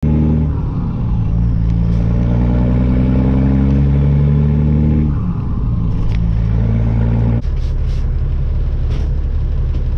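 Caterpillar C-15 diesel in a straight-piped Kenworth semi pulling through the gears, heard from inside the cab. The engine pitch climbs, drops about five seconds in at a gear change, then climbs again. It cuts off abruptly at about seven and a half seconds into a steadier low rumble.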